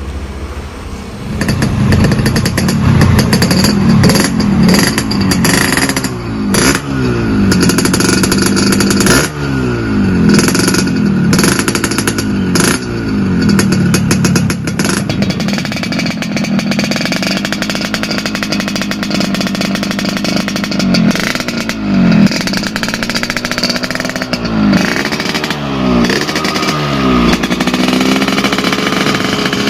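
Yamaha RX-King's two-stroke single-cylinder engine blipped up and down repeatedly through its freshly gutted stock muffler. It holds a steadier speed for a few seconds midway, then is blipped again.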